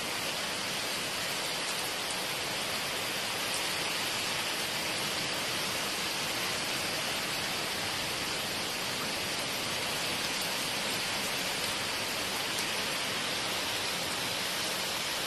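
Hurricane rain and wind: a steady, unbroken hiss of heavy rain driven by strong wind.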